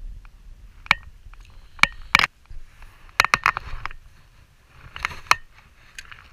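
Close handling noise: jacket sleeves rustling and fishing tackle being handled right at the microphone. It comes as irregular clicks and scratchy rustles in several short clusters while the hook is baited and the spinning rod taken up.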